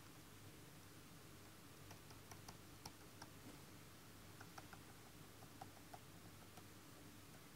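Faint, irregular light taps of a pen stylus on a drawing tablet, a few a second in short runs, over near silence with a low steady hum.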